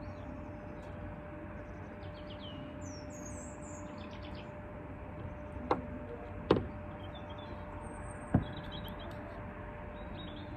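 Small birds chirping in the background, with three short sharp knocks a little over halfway through as a mug is set down and shifted on the narrowboat's steel roof.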